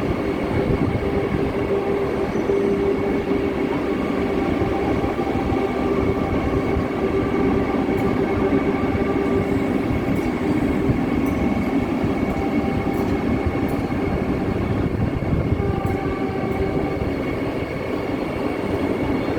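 Vande Bharat Express electric multiple-unit train departing, a steady loud rumble of wheels on rail with humming tones from its electric drive.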